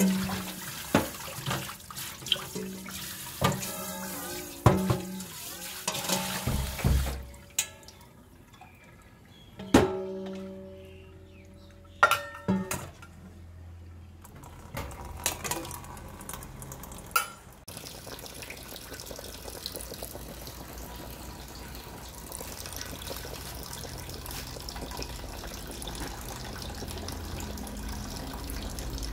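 Metal clanks and knocks from a stainless steel sink and pot as raw fish is handled, some strikes ringing briefly. About two-thirds of the way in this gives way to a steady hiss of a large pot of soup at a rolling boil.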